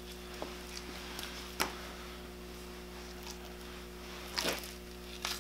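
A few light knocks and clicks from a butchering knife and meat on a plastic cutting board as a venison hind quarter is cut apart, one about a second and a half in and a few more near the end. A steady low hum runs underneath.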